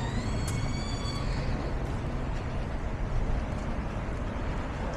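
City street traffic: a steady low rumble of passing vehicles, with a brief high-pitched squeal in the first second or so.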